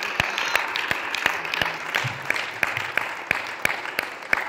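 Congregation applauding: a dense patter of hand claps that thins out and gets quieter toward the end.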